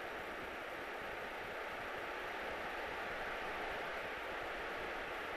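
Steady hiss of a small training airplane's engine and airflow noise in flight, heard through the headset intercom, with a faint steady tone.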